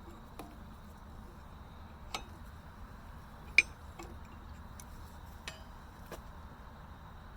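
Scattered metallic clinks of hand wrenches against steel, about seven light strikes spaced irregularly over several seconds, one much louder near the middle.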